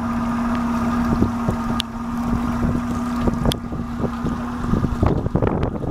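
Yamaha outboard motor on the towing boat running with a steady hum, with wind buffeting the microphone. About five seconds in the steady tone ends and rougher wind and water noise takes over.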